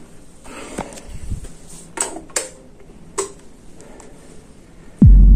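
A few short sharp clicks and taps, then near the end a sudden loud deep boom that sweeps down in pitch and holds as a low rumble.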